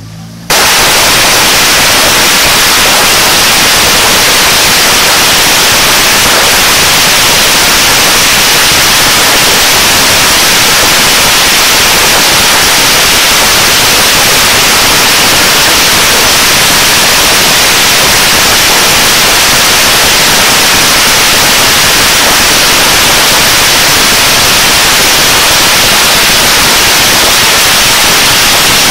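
A long string of firecrackers goes off in one unbroken, rapid crackle, starting about half a second in. It is so loud that the recording is overloaded into a steady, hiss-like wall of noise.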